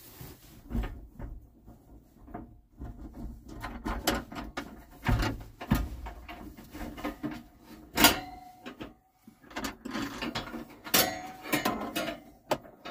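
Handling knocks, rattles and sharp clicks at irregular intervals as a Mr. Heater Buddy portable propane heater is set up and lit, with a loud click about 8 seconds in and a cluster of clicks around 11 seconds.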